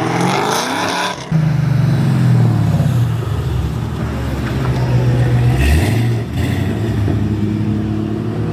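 Second-generation Cadillac CTS-V's supercharged V8 exhaust: revs rising in the first second, then a steady low drone with a quick dip and rise of the revs past the middle.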